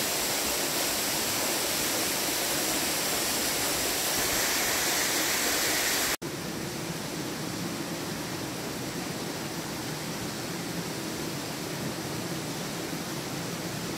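Steady rush of flowing water. About six seconds in it cuts out for an instant and returns a little quieter and duller.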